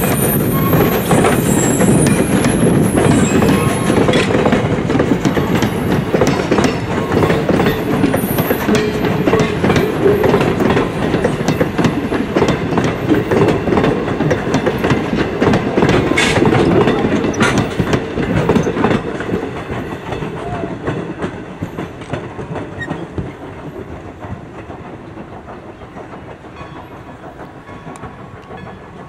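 Passenger coaches of a steam-hauled train rolling past, their wheels clacking over the rail joints. The sound fades from about twenty seconds in as the train moves away.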